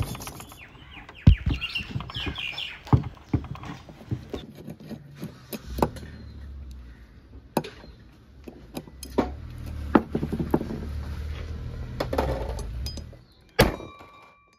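Scattered clicks and taps of a screwdriver and metal parts on a Wagon R alternator's aluminium end housing, with a brief wire-brush scrubbing on the rotor right at the start. A low steady hum runs through the middle, and a sharp click comes near the end.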